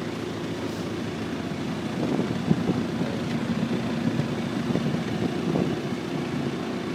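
Motorboat engines running with a steady low drone. From about two seconds in it grows louder and rougher for a few seconds as a speedboat with outboard motors passes close.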